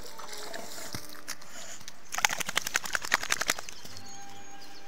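A wet boxer dog climbing out of shallow river water onto the bank, with a quick run of sharp splashes and slaps about two seconds in, roughly seven a second for a second and a half.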